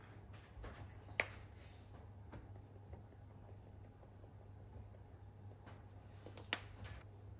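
Hand-held pepper mill being handled and twisted over a plate of fish: faint scattered crunchy clicks, with two sharp clicks, about a second in and near the end.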